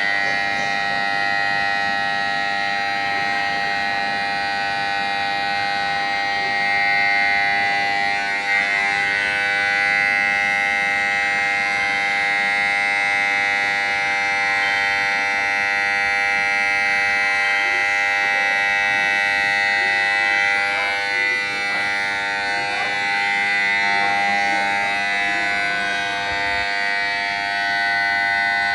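Railway station platform emergency-stop alarm sounding continuously: a loud, steady electronic tone of several held pitches that does not break, the sign that a platform emergency-stop button has been pressed and trains are halted.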